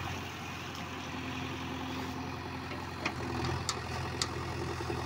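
JCB 3DX backhoe loader's diesel engine running steadily while the backhoe arm works, with a few sharp clicks about three to four seconds in.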